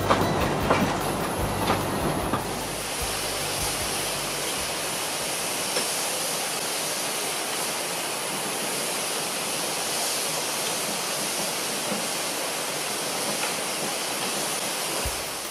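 Narrow-gauge train carriages rolling with a few wheel clicks over the first couple of seconds, then a steady hiss of steam from a small narrow-gauge steam tank locomotive standing at the platform.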